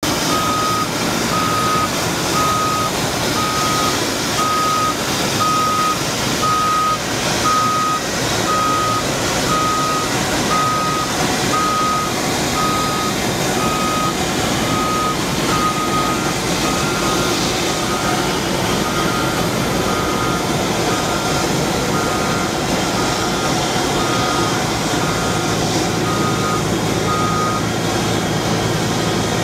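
Reversing alarm of a military wheeled forklift beeping at a single steady pitch, a little over one beep a second, over the steady noise of its engine running. The beeps grow fainter in the second half and stop near the end.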